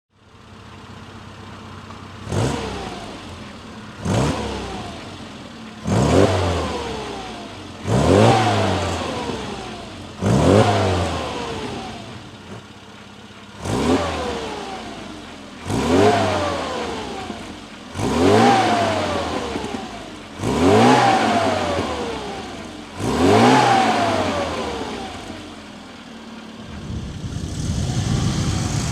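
Rover Mini's four-cylinder A-series engine through a Fujitsubo Cooper S-style sports muffler, idling and then blipped about ten times, each rev rising sharply and falling back to idle. Near the end the exhaust grows louder and stays up.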